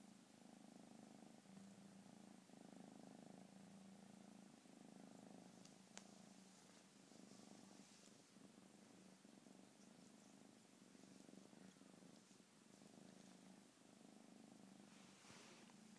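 Tabby kitten purring faintly and steadily while being stroked, the purr changing with each breath in and out about once a second. There is one small click about six seconds in.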